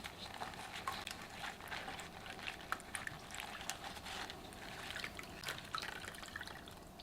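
Wet squelching, dripping and trickling as a cloth pouch of minced ginger and garlic is squeezed by hand in a bowl of seasoning liquid, in many small irregular splashes.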